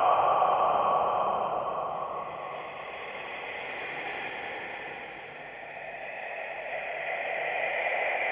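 Scary whispered breathing sound effect: a breathy hiss that fades away over the first few seconds, then swells again toward the end.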